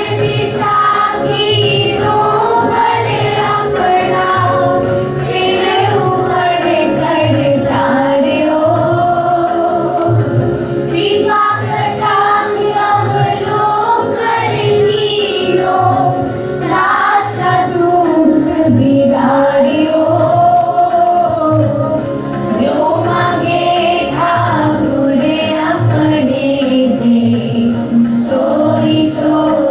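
Students singing a shabad, a Sikh devotional hymn, together over a steady drum beat with jingling percussion.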